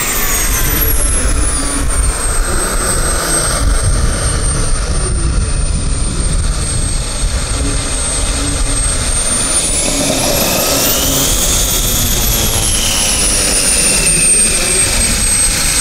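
Small model turboprop turbine engines of two RC Pilatus PC-21s running at taxi power with a high steady whine over the spinning propellers. About two thirds of the way through, the whine climbs sharply and falls back.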